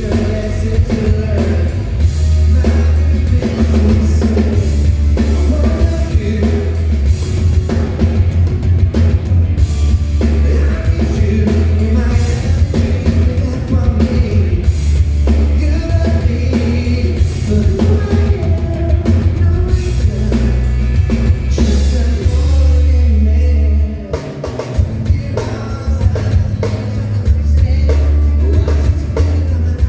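Live pop-rock band playing loud over a PA, with drum kit, heavy bass and a lead vocal. About three-quarters of the way through, the band briefly drops out, then comes back in.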